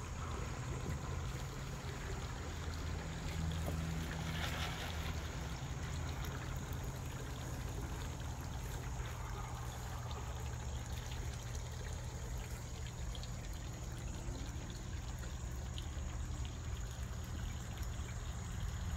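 Water trickling and splashing steadily in a tiered stone garden fountain, over a steady low rumble.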